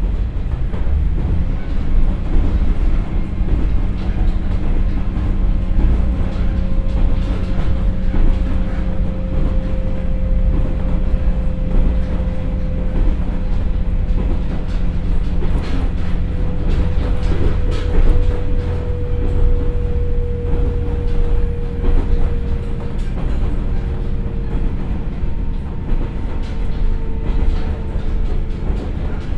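Inside a KiHa 47 diesel railcar with a Komatsu engine and KTF3335A transmission, running at about 75 km/h: a steady low rumble of engine and wheels on rail. A whine falls slowly in pitch as the train slows, with a few clicks about midway.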